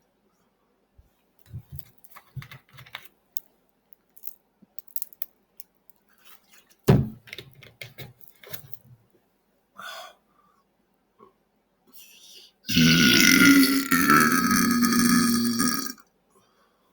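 A man's long, loud belch lasting about three seconds near the end, brought up by gulps of carbonated sparkling water. Before it come scattered faint clicks and low knocks, with one sharp knock about seven seconds in.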